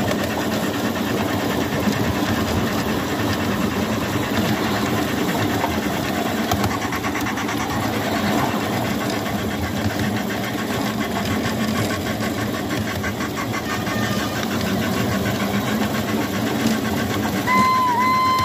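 7¼-inch gauge electric miniature locomotive running along the track: a steady rumble with a fast, even clatter of its running gear and wheels on the rails. Near the end a steady whistle tone starts, dips once briefly, and holds.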